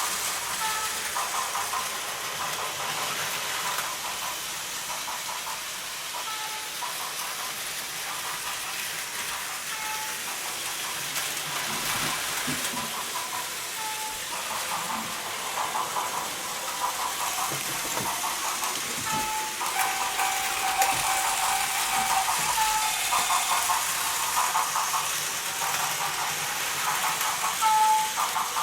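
Battery-powered Plarail toy trains running on plastic track, a steady high whir and hiss, with short repeated electronic tones from the layout's sound gadgets such as the automatic level crossing and sound trains.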